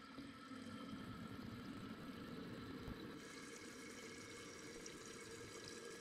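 Toilet tank refilling through its fill valve: a steady rush of water pouring into the tank.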